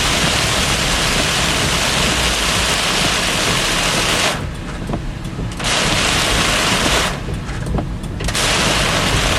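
Heavy rain drumming on a moving car, over steady road noise. The rain hiss drops away suddenly twice, for about a second each time, about halfway through and again a little later.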